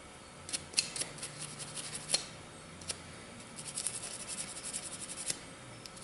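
Toothbrush scrubbing parts of a Glock 30 pistol to get dust and lint out: two runs of quick, scratchy brush strokes.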